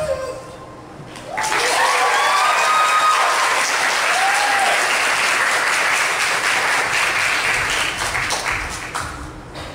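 Audience applauding with a few whoops, starting about a second in as the dance music stops, and tailing off near the end.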